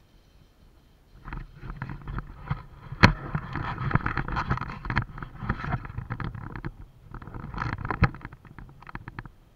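Bicycle-mounted camera rattling and jolting as the bike rides over rough dirt: tyres crunching, frame and chain clattering, with two sharp knocks about five seconds apart. The noise starts about a second in.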